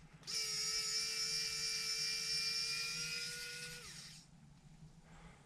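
Small cordless electric screwdriver motor whining steadily for about four seconds, then slowing and stopping as it drives a small screw.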